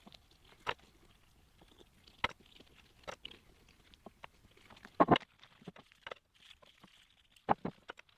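Scattered small clicks, rubs and knocks of a freshly blued steel part being handled and treated by hand. The louder knocks come about five seconds in and again near the end.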